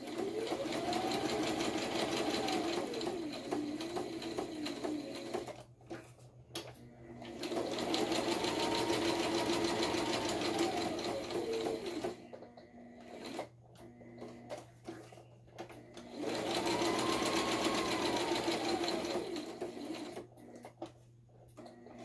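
Electric sewing machine running a straight stitch in three runs of a few seconds each, the motor speeding up and then slowing down each time. Light clicks in the pauses between runs.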